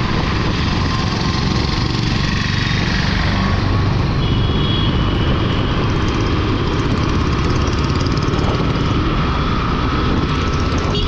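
Motorcycle engine running steadily while riding through traffic, with road and wind noise heard from the rider's seat.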